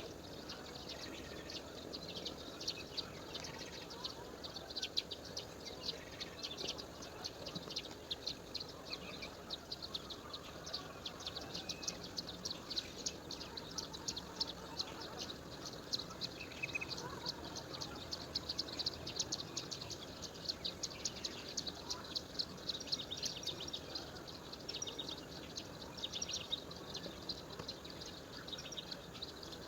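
A dense outdoor chorus of short, high chirps, many each second, running steadily over a faint background hiss.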